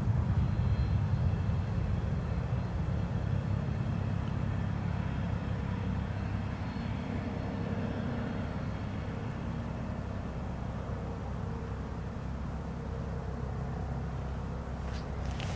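Business-jet turbofan engines at taxi power: a steady low rumble with a faint high turbine whine, slowly fading.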